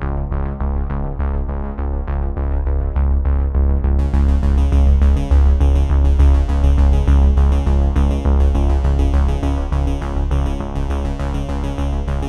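Electronic background music: synthesizer over a steady pulsing beat with a strong bass.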